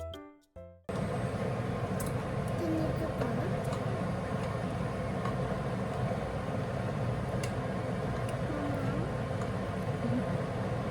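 A music jingle cuts off about a second in, giving way to a steady low background hum with a few faint, brief voices and light clicks.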